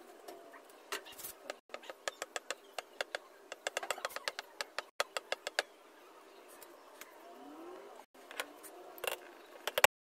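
Quick series of sharp taps and clicks as the nozzles of acrylic paint tubes are dabbed onto a stretched canvas, about three or four a second and thickest in the first half. A faint short rising call sounds about three-quarters through.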